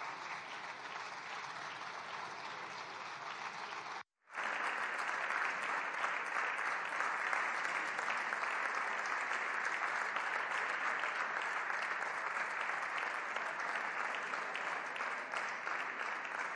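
Applause from a roomful of parliamentary deputies clapping steadily. It drops out for a split second about four seconds in, then comes back louder.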